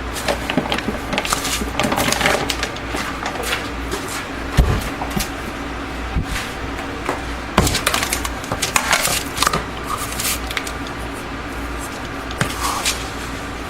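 Scattered knocks, clicks and scrapes of containers and utensils as bath bomb powders are measured into a bowl, the sharpest knocks about four and a half and seven and a half seconds in, over the steady hum of a room fan.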